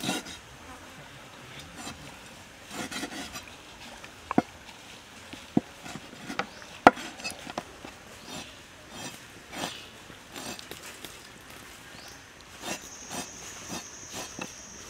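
Large knife cutting raw chicken hearts on a wooden cutting board: irregular soft cuts and sharp knocks of the blade on the wood, the loudest about halfway through. A steady high-pitched whine comes in near the end.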